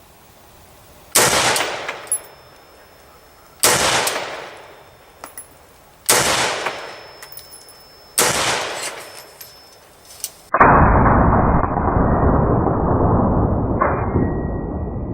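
Four single shots from an AR-15 rifle in 5.56/.223, about two and a half seconds apart, each ringing out for about a second, with a few faint clicks between them. After the fourth shot the sound cuts abruptly to a loud, steady, muffled rushing noise.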